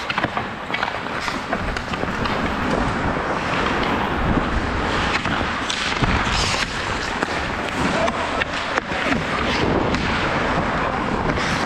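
Ice hockey play heard from a skater's body-worn camera: skates scraping and carving the ice under a steady rush of noise, with frequent sharp clacks of sticks on the puck.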